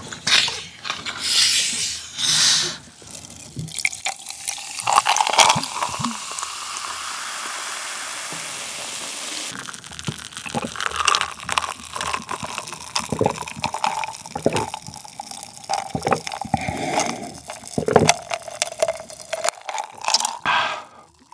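A plastic cola bottle twisted open, then cola poured steadily for a few seconds into a glass of ice. After that come sips and swallows of the fizzy cola, with small clicks and clinks.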